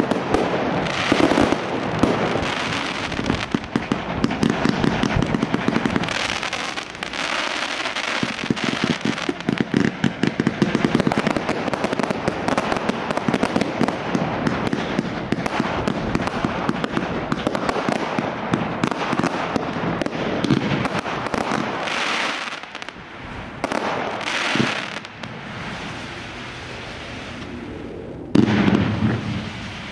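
Fireworks display firing continuously: rapid pops, bangs and crackling from aerial shells, comets and ground fountains. The firing is dense for most of the time, thins out over the last few seconds, then a louder bang comes near the end.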